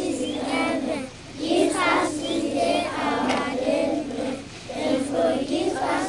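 A group of young schoolchildren praying aloud together, their voices chanting the words in unison phrase by phrase, with short breaks between phrases.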